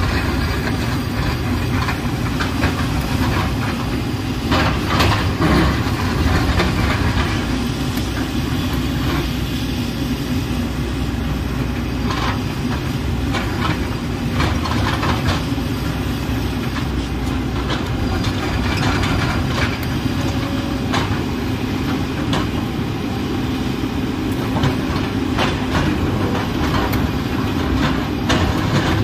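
JCB JS220 tracked excavator's diesel engine running steadily under digging load, with the bucket scraping and knocking against soil and rock now and then as it cuts into the hillside.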